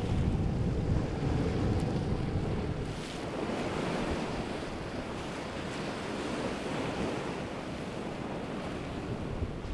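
Wind rumbling on the microphone over the wash of waves and a fast boat's spray. About three seconds in the low rumble drops away, leaving a steady hiss of rushing water.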